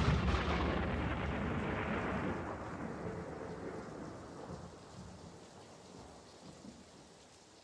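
The rumbling tail of a deep, thunder-like boom that hits just before, pitchless noise fading steadily away.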